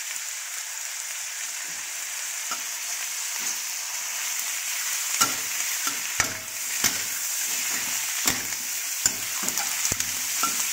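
Chicken and sliced onion sizzling in oil in a metal wok while a metal spatula stirs them. From about five seconds in, the spatula knocks and scrapes against the wok in a run of sharp clacks.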